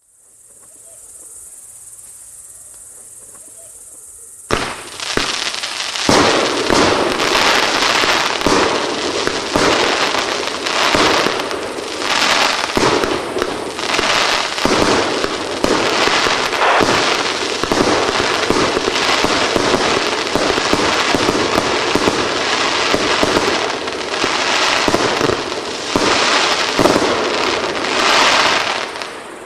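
A 36-shot, 30 mm (1.2-inch) fireworks cake, the Tropic 'Fire Storm' TB58, firing. Its shots start about four and a half seconds in and follow in quick, unbroken succession, mixed with the crackle of gold bursts, until they stop near the end.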